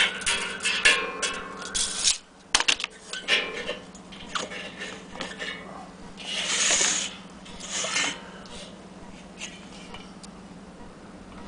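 Handling noises from an old metal paraffin heater being moved and tipped on a tabletop: irregular clicks, scrapes and rubbing, with two brief hissy rubs past the middle.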